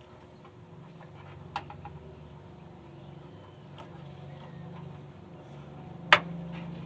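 Scattered small clicks and knocks of hand work on a car's front end, with one sharp, loud knock about six seconds in, over a low steady hum.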